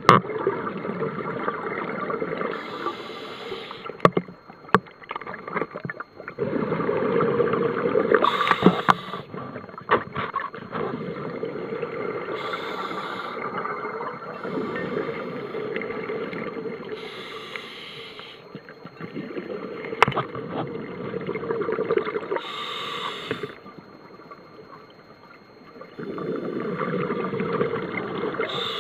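Scuba diver breathing through a regulator underwater. Each breath comes about every four to five seconds, with a hiss of air and a rush of exhaust bubbles, and there are a few sharp clicks.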